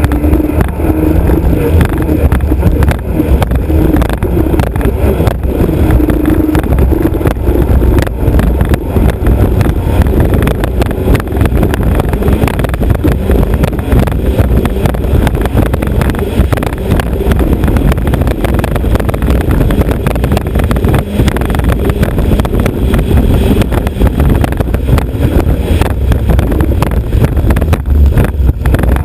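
Alfa Romeo Autodelta 2.5 V6 of a three-point racing hydroplane running under way, heard from the bow, with constant buffeting on the microphone; the engine's note stands out most in the first several seconds.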